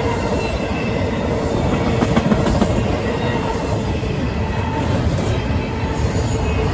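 Intermodal freight cars of a fast CSX train passing at speed, a loud steady rumble of steel wheels on rail with a faint steady ringing tone. A few clicks come about two seconds in.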